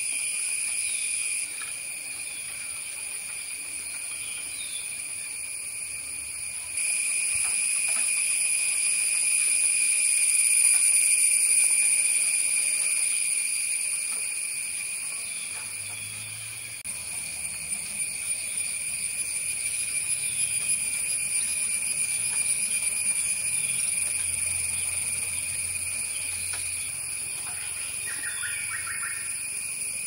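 Steady, high-pitched drone of a forest insect chorus, jumping in loudness a few times, with a few faint bird chirps, one near the end.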